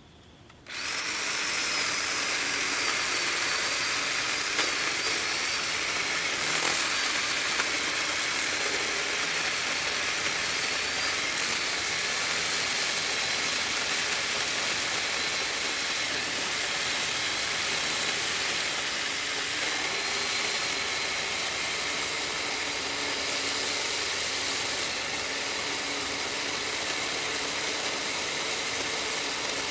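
A chainsaw running steadily at high speed, cutting in suddenly about a second in and holding an even, hissing whine with little change in pitch.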